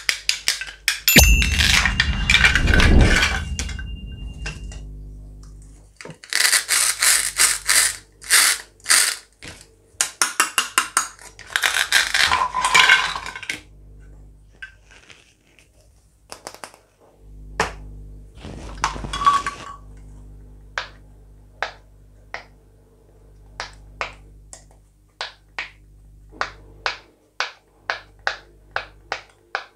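Hard plastic toy fruit and vegetable pieces clicking and clattering as they are handled and set down, with a ringing bell sound effect in the first few seconds. Over the last third, a silicone pop-it fidget toy's bubbles are pressed one after another, a steady run of single sharp pops.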